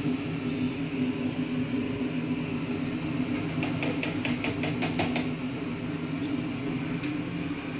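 A spoon tapping about eight times in quick succession on the rim of a cooking pot, about halfway through, and once more near the end, over a steady low background hum.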